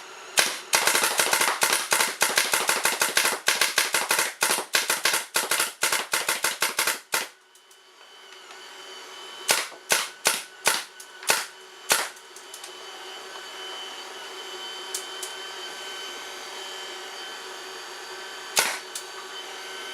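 Azodin Blitz paintball marker firing reballs in PSP ramping mode: a rapid string of shots for about six seconds, then a handful of single shots spaced apart and one more near the end. A steady hum runs underneath.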